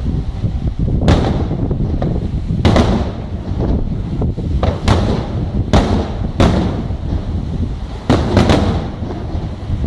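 Aerial firework shells bursting in a display: about seven sharp booms, irregularly spaced, each with a short fading crackle, over a low wind rumble on the microphone.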